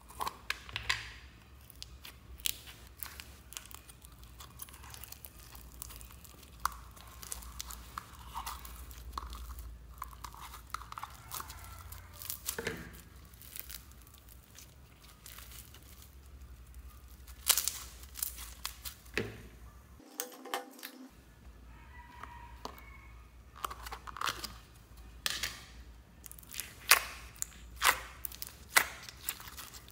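Slime being handled: foam-bead slime (floam) stretched and squeezed, crackling and crunching. Then clear green slime pressed with the fingers in its tub, making sharp sticky clicks and pops that get louder near the end.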